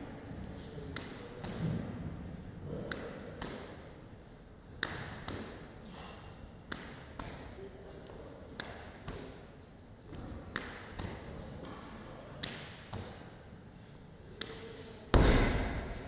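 Medicine ball wall-ball shots: sharp smacks roughly every two seconds as the ball strikes the wall target and is caught. About fifteen seconds in, a loud, deep thud as the medicine ball is dropped onto the rubber gym floor.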